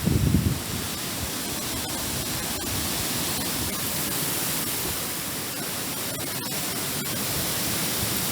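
Steady rushing noise of a storm: strong wind and heavy rain. There are a few low buffeting bumps right at the start, typical of gusts hitting the microphone.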